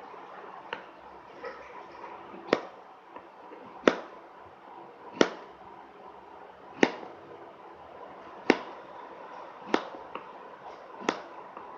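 Knife slicing a banana into small pieces, the blade knocking down onto a hard surface with each cut: slow, unhurried single strokes about every one and a half seconds.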